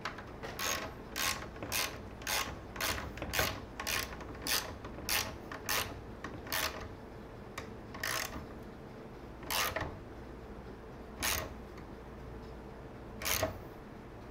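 Ratchet socket wrench clicking in short bursts as bolts are tightened into a wooden chair frame. The bursts come about twice a second at first, then slow to one every second and a half or two toward the end.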